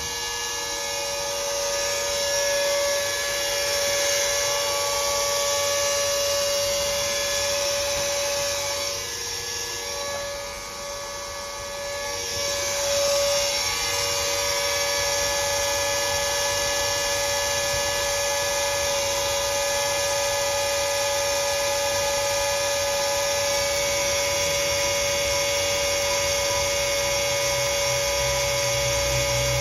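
Electric submersible utility pump running steadily in a bucket of windshield washer fluid, a continuous electric hum while it pumps the fluid through a hose into a tractor's rear tire as liquid ballast. The hum dips briefly about ten seconds in, then holds steady again.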